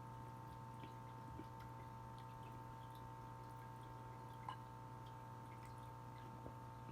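Quiet room with a steady low electrical hum and a few faint soft clicks, one a little clearer about halfway through.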